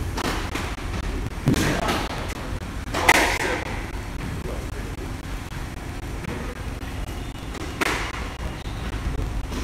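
Squash ball being struck during a rally: three sharp knocks a few seconds apart, the second loudest, over a steady low rumble.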